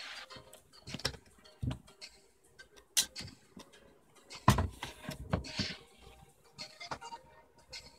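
Princess 300 manual typewriter being tried out: irregular clicks of keys and typebars striking, with a few louder strikes near the middle.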